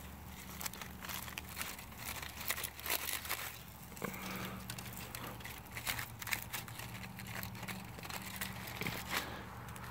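Aluminium foil crinkling and rustling as a knife and fingers work at a roasted rabbit lying on it, in many irregular small crackles. A faint steady low hum runs underneath.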